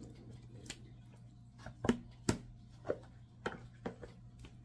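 Hands turning raw chicken legs and thighs over in a thick marinade in a plastic tub: several short, separate wet squishes and light knocks, over a steady low hum.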